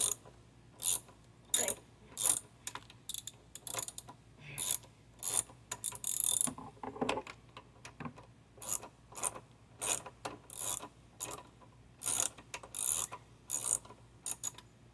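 Socket ratchet clicking in short irregular runs as it loosens the 5/16 bolts holding a push mower's air filter cover.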